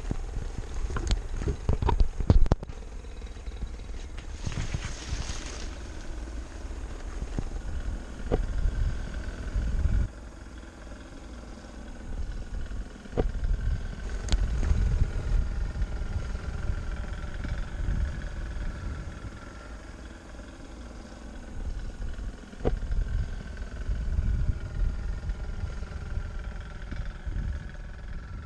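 Distant paramotor engine droning overhead, a thin steady tone that sinks slowly in pitch, under a gusty low rumble of wind on the microphone. A few sharp knocks in the first couple of seconds.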